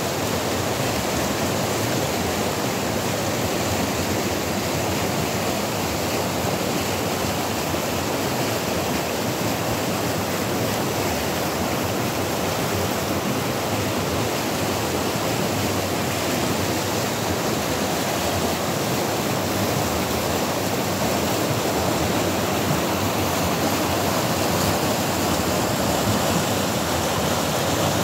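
Fast mountain river rushing over rocks, a steady loud roar of whitewater rapids close by.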